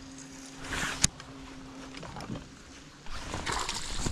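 Handling noises aboard a small fishing boat. A faint steady hum runs through the first two seconds, with a sharp knock about a second in. From about three seconds a louder rushing, water-like noise starts.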